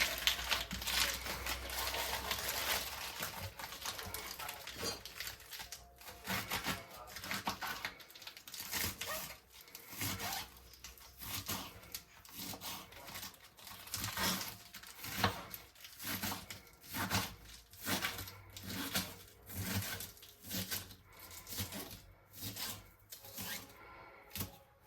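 Fresh lettuce leaves being broken up by hand. There are several seconds of continuous crisp rustling, then a run of separate short leafy crunches about once a second.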